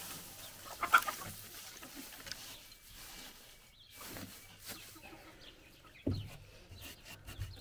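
Domestic fowl calling: one short call about a second in, then a few fainter ones, over the faint rustle of straw being pushed into a nest box by hand.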